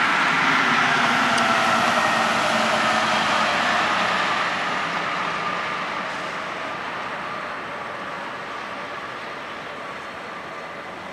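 A heavy vehicle's engine running with a steady rumble and hiss that slowly fades away.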